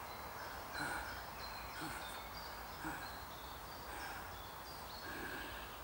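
A man's laboured, pained breathing, a short breath with a low groan about once a second, faint, over light bird and insect chirping.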